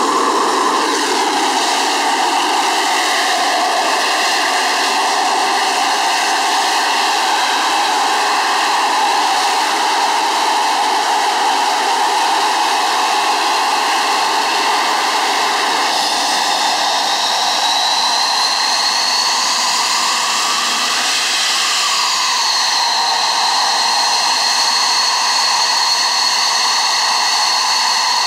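Snecma M53 turbofan of a Mirage 2000D starting up: a loud, steady rushing whine. About halfway through a high-pitched tone rises, dips briefly, then settles into a steady high whine.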